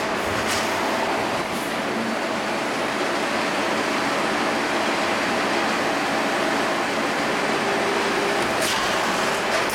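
CNC steel-sheet levelling and shearing line running: steady machine noise from the leveller rolls and conveyor, with a few sharp metallic clicks about half a second in and near the end.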